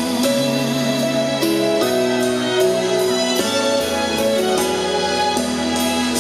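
Instrumental music: held piano and keyboard chords changing every second or so, with light high ticks over them and no singing.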